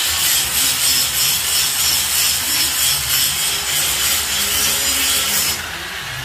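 Loud, steady, harsh metalworking noise from a tool working on the steel window grill, cutting off abruptly about five and a half seconds in.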